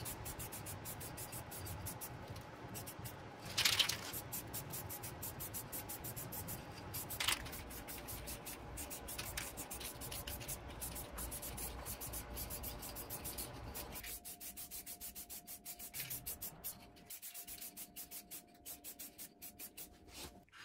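Aerosol spray paint can hissing in quick repeated sprays, with a louder spurt about four seconds in and another at about seven seconds; the last several seconds are quieter.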